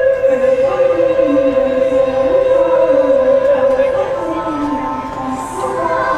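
Music with voices singing, choir-like: one long held note with vibrato over a lower melody that moves up and down.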